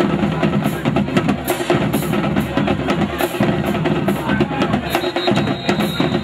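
Drum-heavy music with a steady beat.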